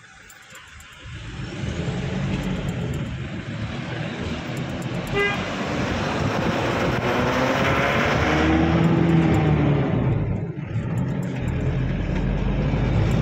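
Tempo Traveller minibus's diesel engine heard from the cab, pulling away from a stop about a second in and building speed, with road noise rising. A short beep sounds about five seconds in.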